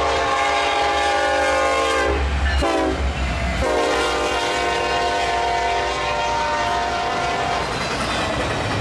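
Locomotive air horn sounding a chord: a long blast, a brief blip, then a second long blast, over the low rumble of a moving train.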